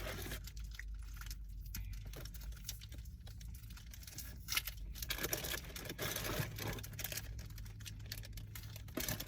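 A plastic snack wrapper crinkling and rustling as an individually packed pastry is opened by hand. It makes a run of small sharp crackles that grows busier about halfway through.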